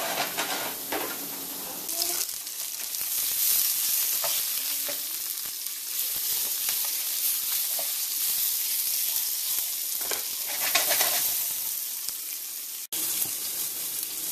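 Yellow bell pepper strips sizzling in olive oil in a hot skillet, with a spatula scraping and stirring them in the pan every few seconds.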